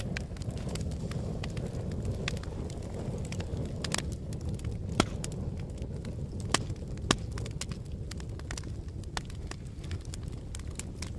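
Wood fire crackling, with frequent sharp pops and snaps, the loudest a few seconds in, over a steady low rush of wind.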